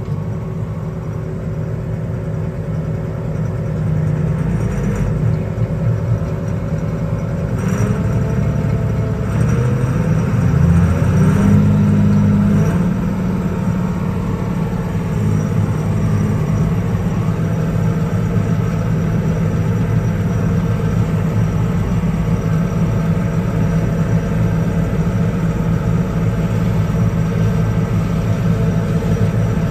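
Allis-Chalmers 8010 tractor's diesel engine running steadily under load while driving a flail chopper. It grows louder about four seconds in and rises in pitch around ten to twelve seconds in before settling.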